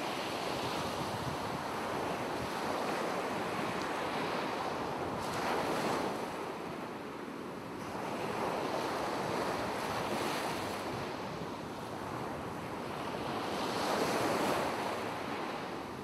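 Sea surf washing up a sandy beach, with wind; the wash swells and fades about every four seconds.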